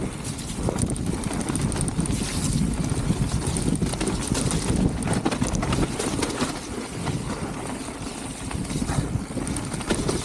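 Wind buffeting the action camera's microphone as a mountain bike rolls down a muddy trail, with the bike's tyres and frame rattling in many quick knocks over bumps.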